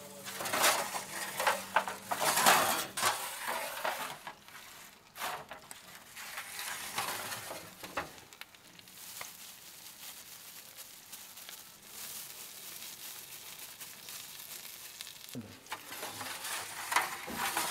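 Heavy clay baking dishes of trout scraped and knocked across a metal sheet into a wood-fired oven, in scratchy bursts at the start and again near the end, with a steady sizzling hiss in between.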